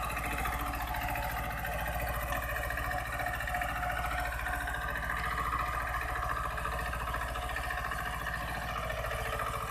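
Swaraj 724 two-cylinder diesel tractor engine running steadily under load while it pulls a 12-disc harrow through the soil.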